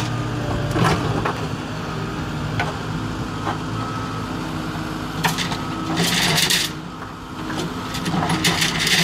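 JCB 3CX backhoe loader's diesel engine running steadily while the backhoe works the bucket over bundles of steel rebar. A few light clicks come through in the first half, and two short noisy bursts come, one about six seconds in and one near the end.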